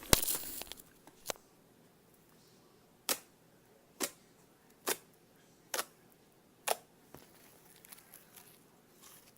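Slime being worked by hand for ASMR: a loud click with a short squelch at the start, then six sharp pops about once a second, and faint crackling near the end.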